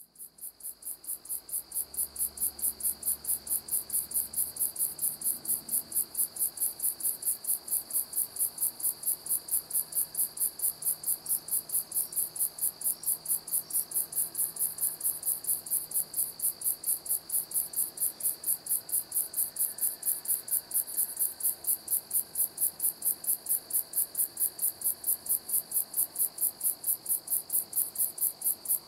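Crickets chirping at night in a fast, even pulse of several chirps a second, over a steady high trill. The chirping fades in over the first couple of seconds.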